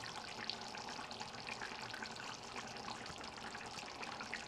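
Tomato-based sauce with whole boiled eggs simmering in a deep frying pan, a steady hiss with many small bubbling pops. It is cooking down so that the liquid reduces and the fat rises to the top.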